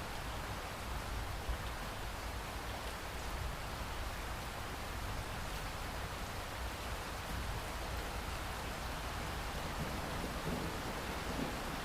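Steady heavy rain pouring, an even hiss of drops, with a low rumble rising near the end.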